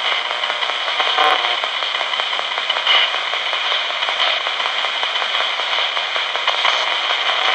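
RadioShack pocket AM radio used as a ghost box, sweeping up the AM band on its own: a steady hiss of static as it steps from frequency to frequency.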